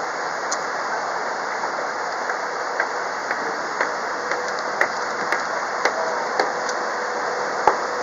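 Tour boat under way on a river: a steady rush of water along the hull over the hum of its engine. From about three seconds in, light ticks come about twice a second.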